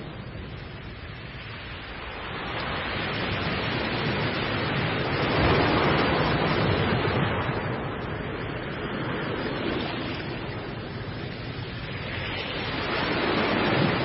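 Sea surf: waves breaking and washing in rough water, rising and falling in slow surges, loudest about five to seven seconds in and again near the end.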